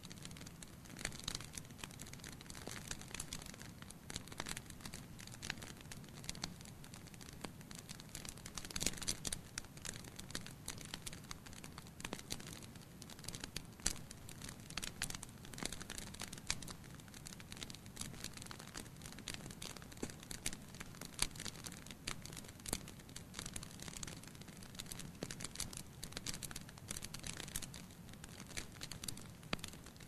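Wood logs burning in a fireplace, crackling with many small, irregular pops over a low, steady rumble of the flames.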